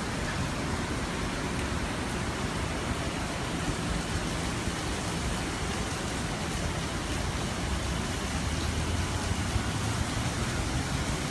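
Heavy cloudburst rain pouring down steadily as an even rushing hiss, with a low hum underneath that grows stronger from about four seconds in.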